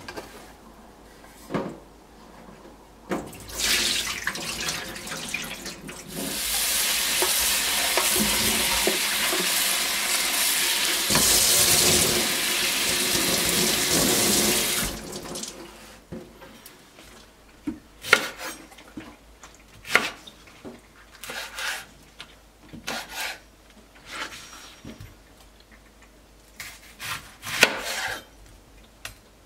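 Tap water runs into a stainless steel tray of beef ribs in a steady rush for about twelve seconds. Then a kitchen knife cuts an onion on a wooden cutting board, making scattered sharp knocks.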